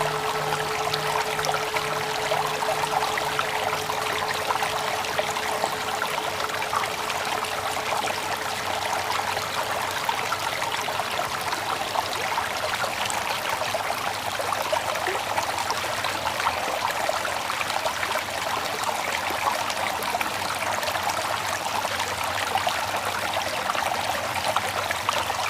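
Flowing water, a steady trickling stream. The hum of a meditation bell dies away over the first few seconds.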